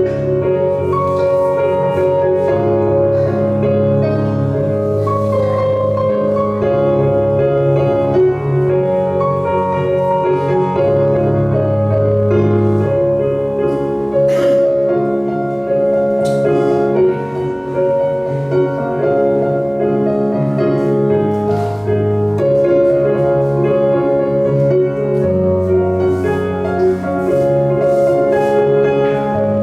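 Background music led by piano, slow and steady, with held notes over a bass line that changes every few seconds.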